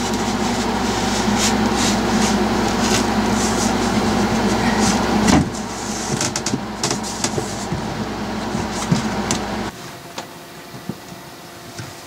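Steady mechanical hum from an unseen machine, with knocks and scrapes as a panel is fitted into a compartment by hand. The hum partly drops about five seconds in and stops shortly before the end, leaving only light knocks.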